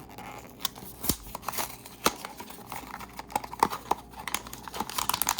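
Hands opening a small cardboard blind box by ripping it open, giving irregular sharp clicks, taps and rustles of cardboard and packaging.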